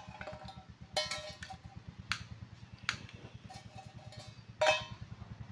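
Metal cookware clinking: four sharp knocks, each with a brief ringing tone, about a second in, near two and three seconds, and loudest near the end, as a pot is handled on a portable gas stove. A low, steady throbbing hum runs underneath.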